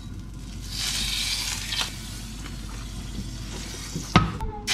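Butter sizzling as it melts in a hot stainless-steel frying pan. The hiss swells about a second in, then settles to a steady fizz. A sharp clink comes near the end.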